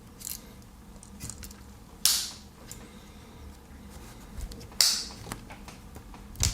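Pocket knives being handled: a few sharp clicks and two louder scraping, rustling sounds, one about two seconds in and one near five seconds.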